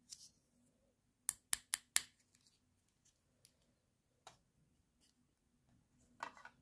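Small hard plastic toy pieces clicking as they are handled. Four quick sharp clicks come about a second in, a single click follows a couple of seconds later, and a brief rattle comes near the end.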